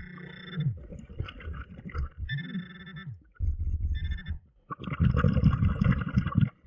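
Underwater sound picked up by a diver's camera on a pond bottom: muffled rumbling and bubbling, with short buzzing tones repeating about every two seconds. A louder, rougher rumble starts about five seconds in.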